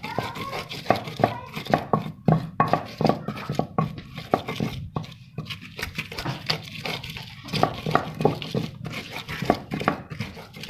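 Stone pestle pounding and grinding fresh chilies, shallots, garlic and spices against a stone mortar (Javanese cobek and ulekan), in quick uneven knocks, a few a second, with rubbing scrapes between them as the spice paste is worked smooth.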